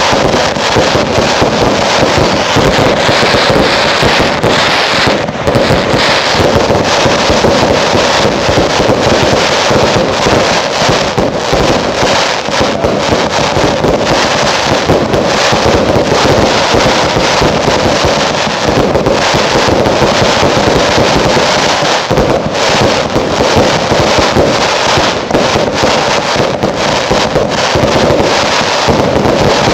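Loud, dense and unbroken barrage of category 2 consumer fireworks, with shots launching and bursting and stars crackling, many reports overlapping without a pause.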